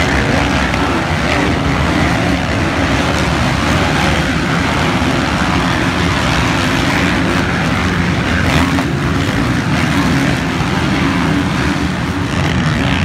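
A pack of motocross bikes racing past, many dirt-bike engines overlapping in a loud, continuous noise.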